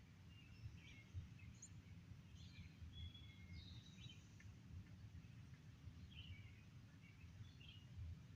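Faint, scattered bird chirps and short whistled notes over a low steady rumble.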